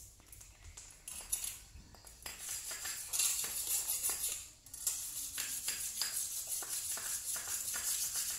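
Water splashing and scrubbing in a shallow basin, a scratchy hiss of quick repeated strokes that starts about a second in and runs on with a brief pause near the middle.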